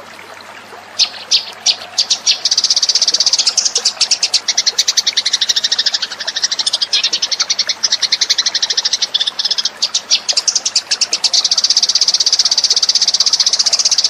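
Eurasian tree sparrows chirping in a fast, dense run of short high chirps, starting about a second in and then carrying on without a break. This is a sparrow lure call.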